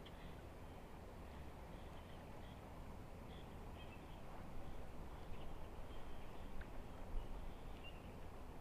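Quiet riverside ambience: a steady low rush of flowing river water and wind on the microphone, with a few faint, short, high bird chirps.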